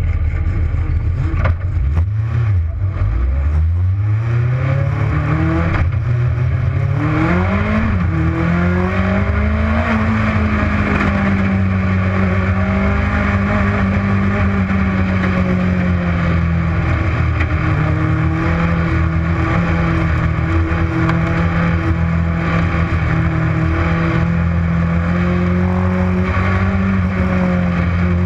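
Legends race car engine accelerating hard through the gears, its pitch climbing with gear changes about six and eight seconds in. It then runs at steady high revs with only small dips, over a constant low rumble.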